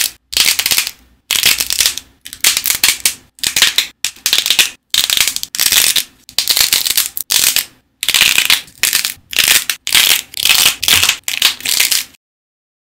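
Dried clay shells crackling as fingers press and bend them, in about a dozen short bursts of dense crisp cracking with brief pauses between, stopping abruptly near the end.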